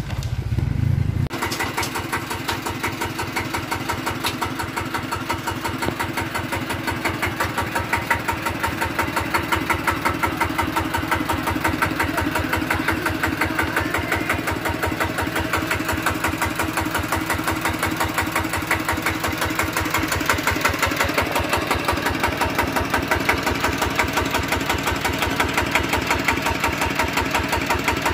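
Single-cylinder diesel engine of a walk-behind two-wheel tractor running at idle, a rapid, even chugging that sets in about a second in.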